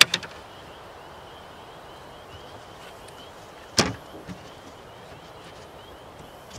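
Wooden beehive cover knocking against the hive box as it is set and adjusted: a sharp double knock at the start and a louder single knock a little under four seconds in. A faint high chirping repeats steadily in the background.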